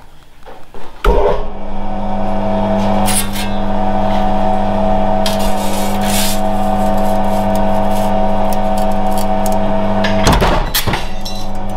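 AP Lever mechanical guillotine shear, converted to a single-phase electric motor, starting up about a second in and running with a steady mains hum from the motor and belt-driven flywheel. A little after ten seconds a loud crashing stroke comes as the blade comes down to cut the sheet, and the motor runs on afterwards.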